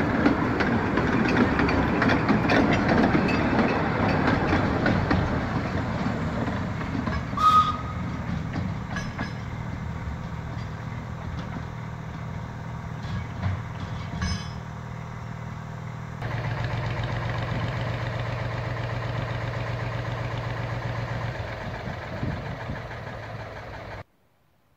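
Two-foot-gauge train running on the line, loud and noisy at first and then fading, with a brief high squeal about a third of the way in. An abrupt change leads to a steadier low hum, and the sound cuts off just before the end.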